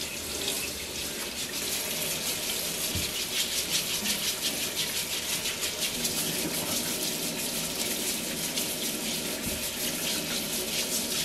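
Kitchen faucet running steadily over sweet potatoes into a stainless steel sink while they are rubbed by hand and scrubbed with a vegetable brush, with a fine, quick rasp of strokes over the splashing water.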